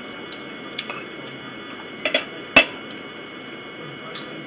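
A fork clicking against a dinner plate a few times, with a handful of small clicks and one sharper, louder clink about two and a half seconds in, over a steady background hum.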